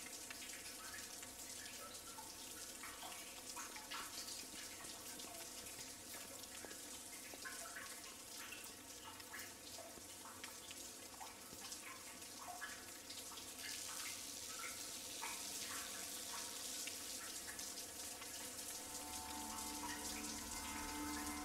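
Taps running into washroom sinks: a faint steady hiss of water with scattered small splashes and drips.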